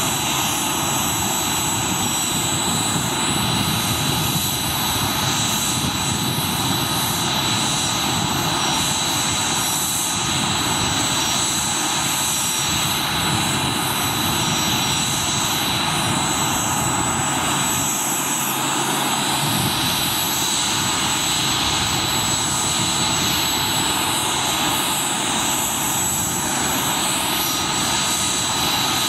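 Boeing CH-47 Chinook's twin turboshaft engines running at ground idle with its rotors turning slowly: a steady turbine whine over a broad rushing roar.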